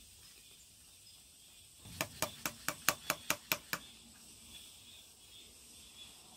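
A wooden spoon tapping a stainless steel mesh sieve full of damp potato starch: about nine quick, evenly spaced taps with a short metallic ring, starting about two seconds in and lasting just under two seconds.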